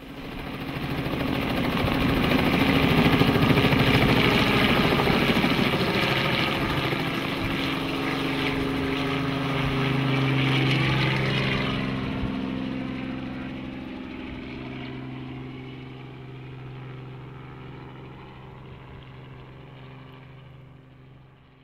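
Robinson R44 Raven II helicopter lifting off and flying away: the steady hum of its six-cylinder piston engine with the chop of the rotor blades. It is loudest a few seconds in, then fades away over the second half.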